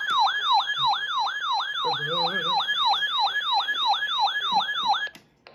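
Weather radio receiver's electronic siren alarm for a tornado warning: a fast yelping tone sweeping down and back up about three to four times a second, cutting off suddenly about five seconds in.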